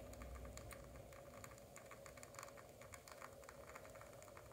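Near silence: a shot of espresso trickling from a lever espresso machine into a cup, heard as faint, quick, irregular ticking and pattering over a low steady hum.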